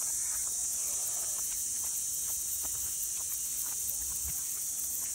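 Shower head spraying water in a steady hiss, with scattered small splashes and drips.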